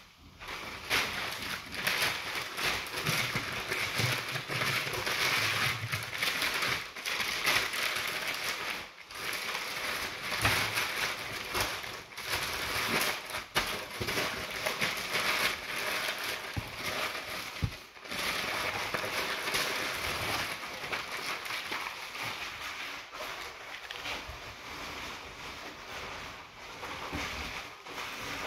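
Sheets of white packing paper being crumpled and pressed by hand into a cardboard carton: continuous crinkling and rustling, full of small crackles.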